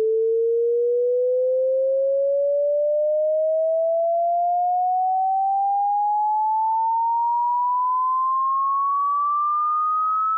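A single pure sine test tone rising slowly and steadily in pitch at an even level: a hearing-test frequency sweep.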